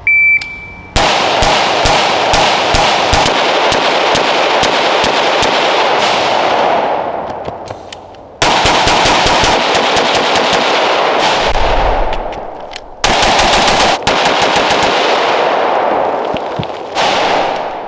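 A shot timer beeps once, then an unsuppressed AR-style rifle fires rapid semi-automatic strings of shots, three strings in all. After each string the echo dies away before the next begins.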